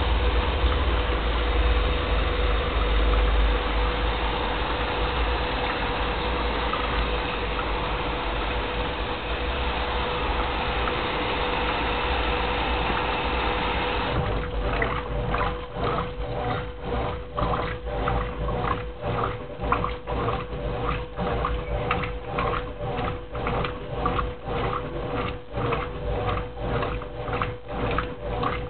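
Brastemp Clean 10 kg washing machine with a duvet in the drum: a steady rush of water with a constant hum for the first half. About halfway through, the agitation cycle starts, sloshing back and forth about twice a second.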